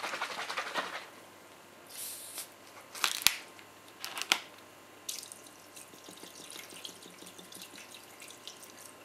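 Plastic ayran bottle handled, with two sharp clicks about three and four seconds in as its cap is opened, then from about five seconds in ayran pouring from the bottle in a light, steady trickle onto rabbit pieces and sliced onion in a food-grade plastic bowl.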